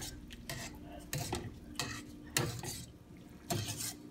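Wire mesh strainer stirring fresh noodles in boiling water in a stainless steel pot, with repeated metal scrapes and clinks against the side of the pot.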